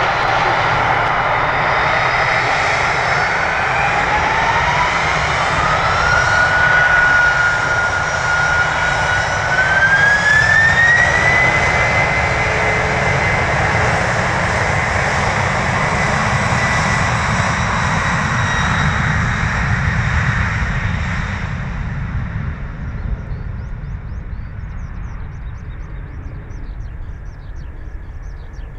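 Boeing 767-300ER's GE CF6-80C2 turbofans spooling up to takeoff thrust: over a steady jet roar, a whine climbs in two steps, then holds. In the last third the roar fades as the airliner rolls away.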